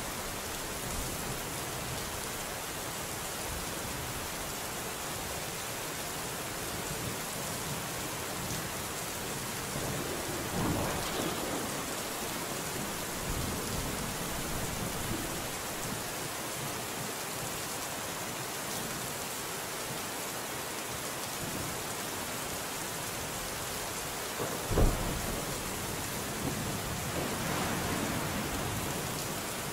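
Steady rain falling, with thunder: a low rumble about ten seconds in, a short sharp thunderclap, the loudest sound, about twenty-five seconds in, and another rumble near the end.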